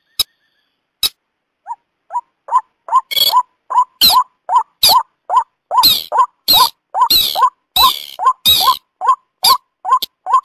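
Calls of a white-breasted waterhen and a second rail (beker) used as a bird lure. A short call note with a rising hook repeats about three times a second from about two seconds in. From about three to nine seconds in, louder, fuller calls overlay it.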